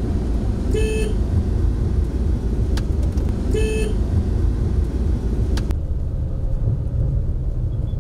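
Road and engine noise inside a moving Suzuki car's cabin, a steady low rumble, with two short car-horn beeps, one about a second in and one nearly four seconds in.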